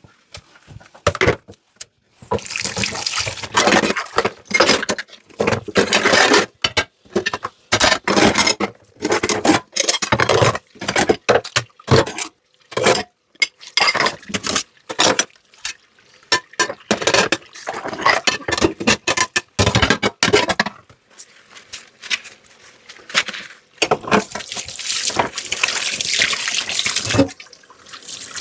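Water from a kitchen tap splashing into a sink as dishes are rinsed. It comes and goes in uneven bursts, with short knocks of dishes in between.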